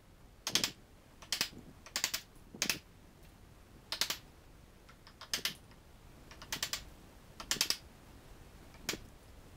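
Wooden mallet striking a chisel held in the end grain of a hardwood tenon: a series of sharp knocks, about one a second, some in quick pairs, as the chisel splits waste off the tenon cheek.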